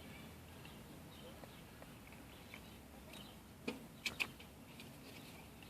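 Quiet handling of a car power-window motor's gear housing as its cover is fitted back on, with three sharp clicks close together about four seconds in.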